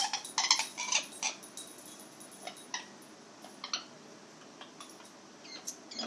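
Amazon parrot making a few short squawks and chirps in the first second, then only scattered soft chirps and clicks.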